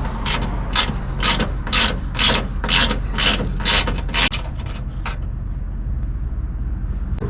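Hand ratchet clicking in quick strokes, about two a second, as it backs out a skid plate bolt that has just broken loose; the clicking stops about five seconds in.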